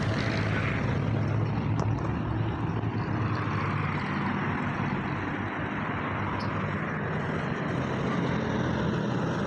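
Passing road traffic: a steady rumble of engines and tyres, with vehicles going by close at hand, among them a pickup truck.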